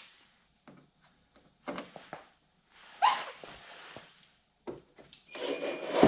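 Cordless drill run in short bursts, enlarging quarter-inch pilot holes to 3/8 inch through a carbon fiber side skirt for rivnuts. There are a few brief whirs with quiet gaps, the motor rising in pitch as it spins up, then a longer run starting near the end.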